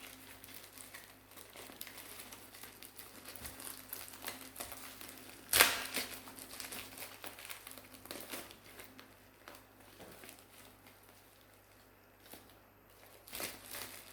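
Plastic packaging crinkling and rustling as a small package is opened, mostly faint. There is one sudden loud crackle about five and a half seconds in, and more crinkling near the end.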